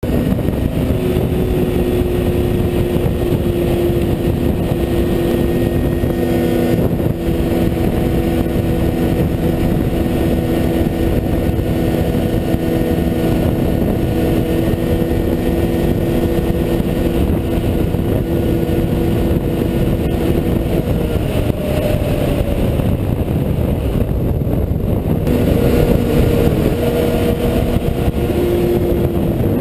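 Snowmobile engine running at a steady high pitch while skimming across snow and open water. About two-thirds of the way through, the pitch breaks and shifts, then settles again near the end.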